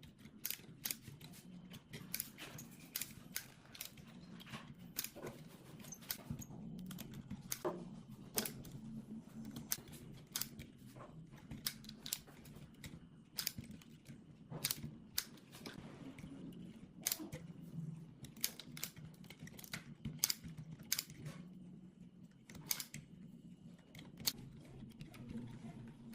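Irregular sharp clicks and taps, a couple a second and sometimes in quick clusters, from small hand tools and metal parts being handled during work on a power amplifier. A faint low steady hum runs underneath.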